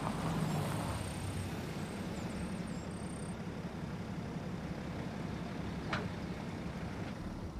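A car engine idling: a steady low rumble, with a single light click about six seconds in.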